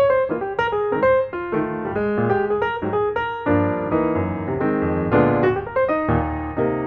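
Background piano music: a melody of quick notes over lower chords.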